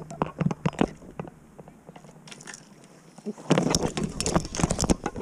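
Close handling noise from fishing gear and a metal-framed landing net: scattered sharp clicks and knocks, thickening about three and a half seconds in into a dense, louder clatter with a low rumble.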